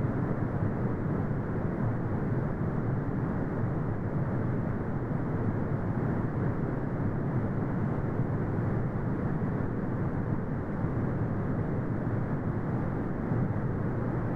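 Continuous brown noise: a steady, deep, even rumble with nothing above the low and middle range, unchanging throughout.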